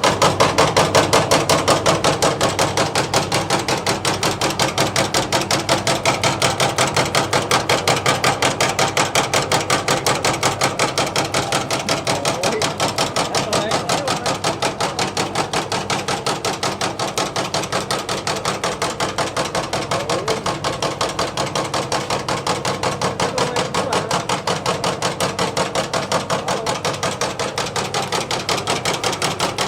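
JL660 jelly dicing machine running, its blade chopping jelly in rapid, even strokes that repeat steadily without a break.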